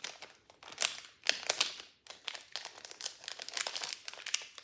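Thin plastic packaging bags crinkling and rustling as they are handled, in irregular crackly bursts that become more continuous in the second half.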